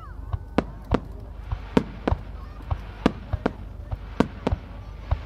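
Aerial fireworks: a rapid, uneven string of sharp bangs, two or three a second, as shells launch and burst over a steady low background rumble.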